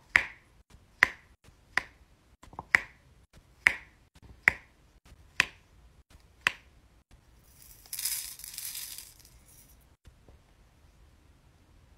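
Diamond painting pen pressing square resin drills onto the sticky canvas, a sharp click with each press, about one a second, eight times. Past the middle comes a short rustling noise lasting about a second and a half.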